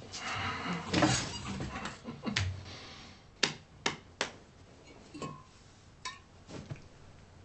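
Clothing rustling and shuffling as a man sits down on a metal-framed bed, then several sharp clicks and light knocks from small objects being handled, three close together about three and a half seconds in and a few softer ones after.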